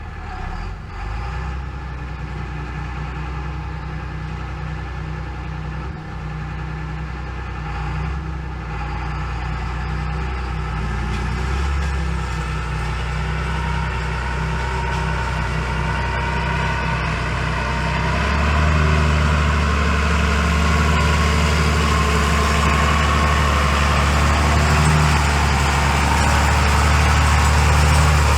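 Farm tractor engine running steadily, growing gradually louder, with a step up in level and a deeper, fuller note about two-thirds of the way through.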